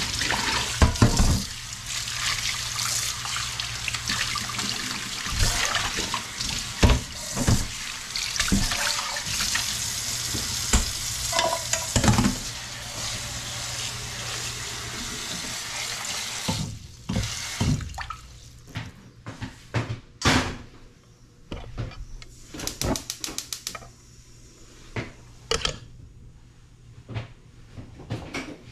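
Kitchen tap running into a stainless steel sink while a pot is scrubbed and meat is rinsed under the stream in a hammered aluminium pot, with occasional knocks of the pot. The water stops a little past halfway, leaving scattered clicks and knocks.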